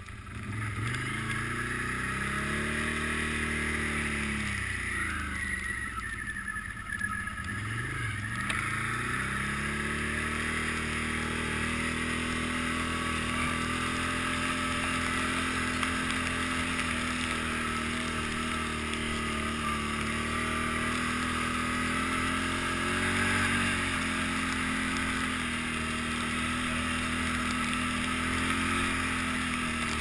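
Can-Am Outlander 800 Max ATV's V-twin engine running under throttle on the move: the revs climb at the start, fall and pick up again twice a few seconds in, then hold steady at speed.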